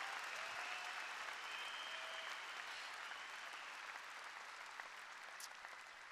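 Large audience applauding, the applause slowly dying away.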